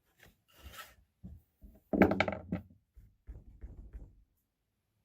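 Irregular knocks, scrapes and rubbing of tools and parts being handled and shifted about, with the loudest clatter about two seconds in.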